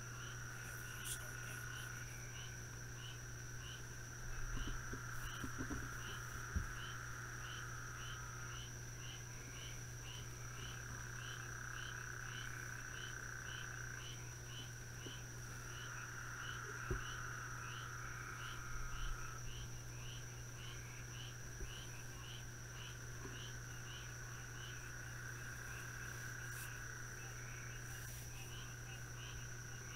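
Night chorus of insects and frogs: a regular chirp about one and a half times a second and long trills lasting a few seconds that come and go, over a steady high-pitched buzz and a low steady hum. A few faint knocks around a quarter and halfway through.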